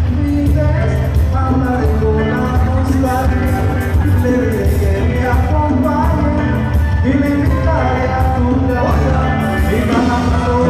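Live band playing through a PA, a lead singer's voice over electric bass, guitars, keyboards, drum kit and congas.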